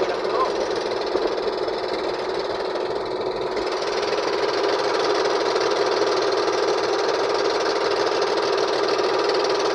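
Engine of a motorised outrigger boat (bangka) running steadily under way, a continuous knocking drone. A hiss joins in about four seconds in.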